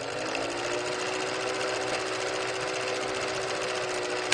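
Film projector sound effect: a fast, steady mechanical clatter with a motor hum that rises slightly as it starts, ending with a sharp click and fading out.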